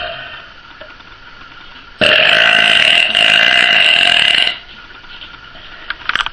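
A woman's long, loud belch that starts about two seconds in and lasts about two and a half seconds.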